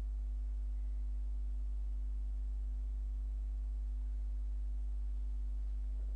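Steady low electrical hum, a constant buzz with faint overtones and nothing else happening.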